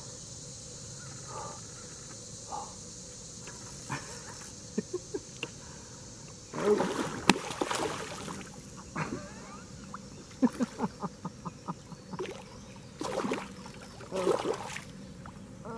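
A hooked channel catfish splashing and thrashing at the water's surface beside a kayak, in two noisy bursts: one about six seconds in and another near the end. Scattered light clicks come in between, over a steady high drone of insects.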